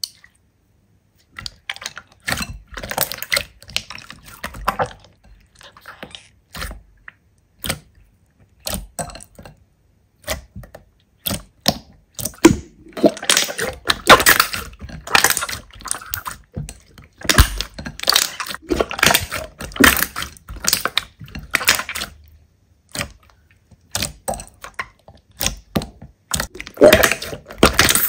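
Slime being squished and pressed by hand, giving bursts of rapid crackling and popping clicks with short gaps between them, denser and louder from about halfway.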